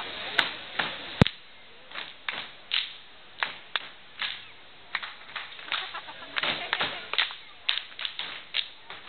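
Sharp hand claps in a steady rhythm, about two to three a second, with one much louder crack about a second in.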